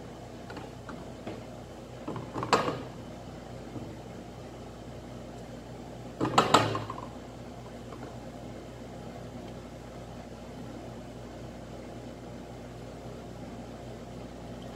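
Handheld stick blender running steadily in a stainless steel bowl of thick face cream, a low motor hum, mixing the emulsion so it does not separate. Two brief louder clatters come about two and six seconds in.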